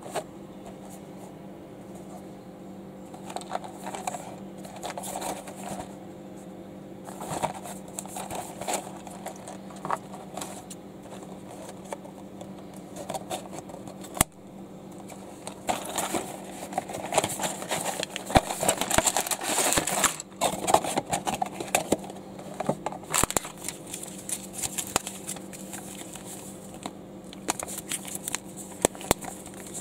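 Hands handling and opening LEGO packaging: crinkling and rustling with many scattered clicks and taps, busiest around the middle, over a steady low hum.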